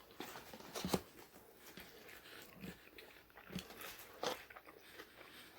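A person chewing and biting food close to the microphone: scattered wet mouth clicks and crunches, the sharpest about a second in and another a little past four seconds.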